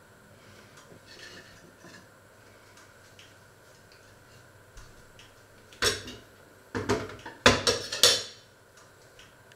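Kitchenware clattering: a sharp knock about six seconds in, then a quick run of loud clinks and knocks lasting about a second and a half.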